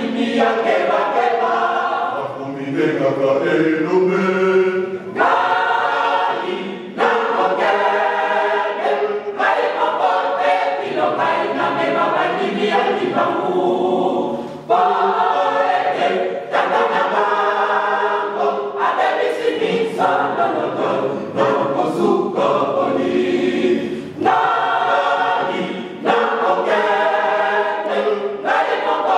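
Mixed choir of women and men singing unaccompanied, in phrases with brief breaks between them.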